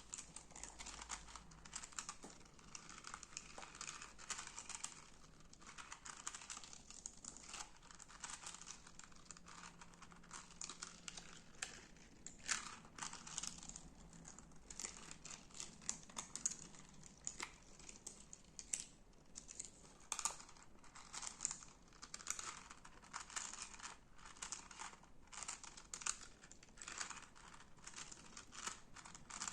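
Crunchy slime being squeezed and pressed by hand, giving a steady run of crackling with many small sharp snaps and clicks.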